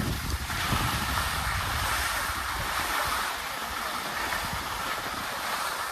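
Skis gliding over groomed snow: a steady hiss, with some wind on the microphone.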